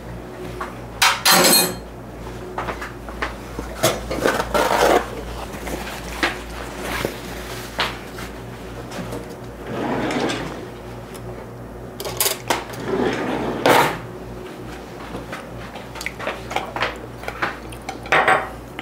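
Dishes and cutlery clattering and clinking: irregular knocks and clinks, with a few louder ones scattered through.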